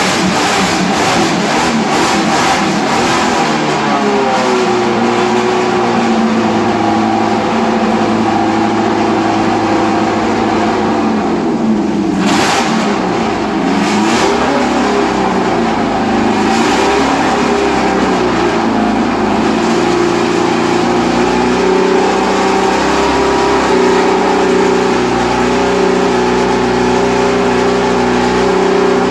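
1970s Formula One cars' Ford-Cosworth DFV V8 engines blipping the throttle sharply at first, then running steadily at low revs with two brief, sharp revs about twelve and sixteen seconds in.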